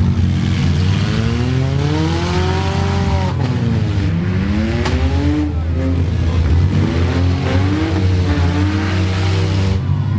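Several demolition derby cars' engines revving hard at once, their pitch climbing and falling over a steady low drone, with a single sharp bang about five seconds in.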